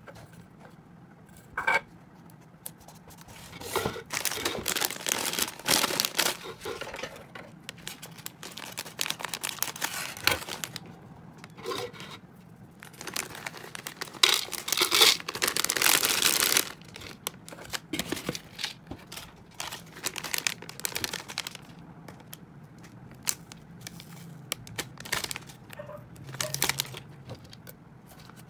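Plastic bag crinkling and dried leafy hamster food rustling as it is handled and poured into a clear plastic jar. It comes in irregular bursts, the longest and loudest about halfway through, with a few sharp clicks.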